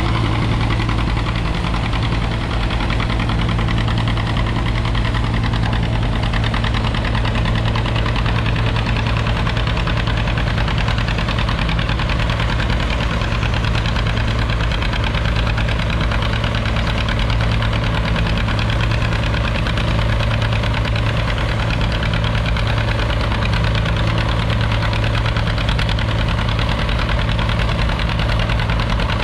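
Vintage farm tractor engine running steadily under load while pulling a weight-transfer sled, with a constant low hum.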